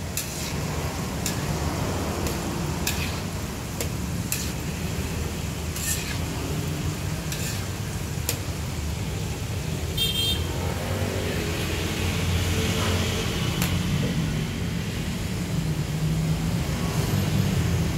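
Battered pork pieces deep-frying in a wok of bubbling oil, with scattered clicks of a metal spatula against the wok over a steady low rumble. A short high horn toot sounds about ten seconds in.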